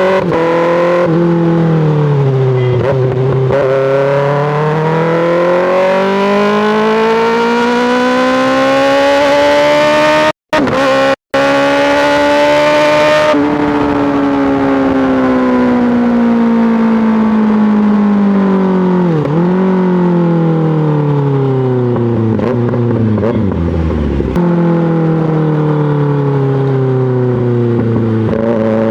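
2024 Kawasaki ZX-6R inline-four engine through an M4 GP slip-on exhaust, running under way: the pitch climbs steadily for several seconds as it pulls through a gear, then falls back slowly, with a sharp dip and a drop in revs later on before settling lower. The sound cuts out twice very briefly about ten and eleven seconds in.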